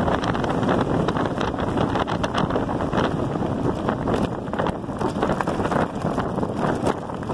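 Wind rushing over the microphone of an electric bike moving at speed, with its tyres rolling over a loose gravel road, giving a steady noise full of many small clicks and crackles.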